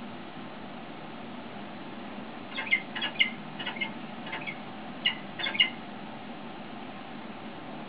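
Short, high chirping peeps from a downy bird-of-prey chick at feeding, coming in quick clusters from about two and a half seconds in and stopping before six seconds, over a steady background hiss.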